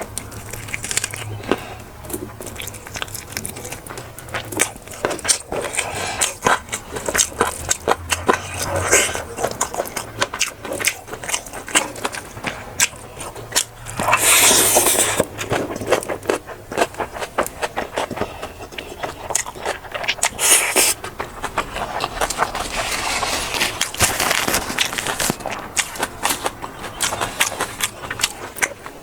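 Close-miked eating: many quick crunching clicks and chewing, with scraping and clinks that sound like a spoon or fork against a plate. There are two louder rushy bursts, one about halfway through and a shorter one about twenty seconds in.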